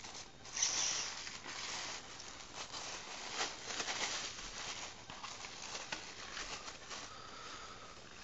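Rustling and crinkling of speaker packaging being handled by hand during unboxing, uneven throughout, with the sharpest rustle about half a second in.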